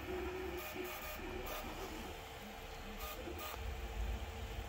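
FLSUN Super Racer delta 3D printer running a fast print: its stepper motors whine in short tones that keep changing pitch as the print head darts about, busiest in the first second and a half and again about three seconds in, over a steady hiss.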